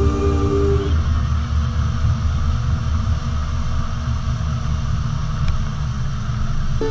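Yamaha AR210 jet boat running at speed across open water: a steady low rumble of engine, water and wind buffeting the microphone. The last notes of background music fade out about a second in.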